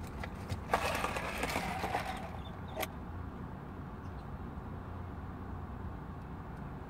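Eating a fried chicken sandwich: a short noisy burst of chewing and wrapper handling about a second in, then a single sharp click, over a steady low hum.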